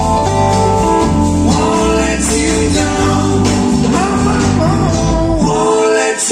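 Live band playing a song: acoustic guitar, electric bass, drums and keyboards under a male lead vocal. About five seconds in the bass drops out, leaving the voice over lighter accompaniment.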